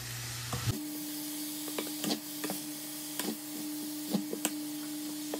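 Stir-fry sizzling in a nonstick wok as shredded carrot, vegetables and pork are tossed with wooden chopsticks. Several light taps of the utensils on the pan are heard, and a steady hum starts about a second in.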